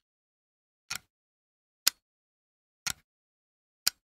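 Antique clock ticking, about one tick a second, the strokes alternating between a duller tick and a sharper tock.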